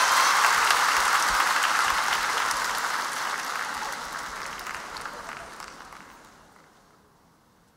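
Concert audience applauding, the applause dying away steadily over several seconds to near silence.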